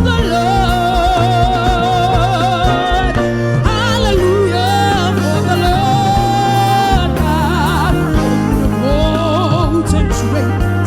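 Gospel worship music: a solo voice sings long, held notes with a wide vibrato and short melodic runs over sustained bass and chord backing.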